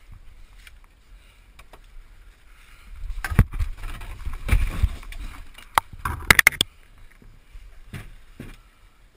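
A plastic whitewater kayak and its paddle being handled and carried over leaf litter and rocks: rustling and scraping with several sharp knocks, a quick cluster of them about six seconds in the loudest, over low rumbling handling noise on the worn camera's microphone.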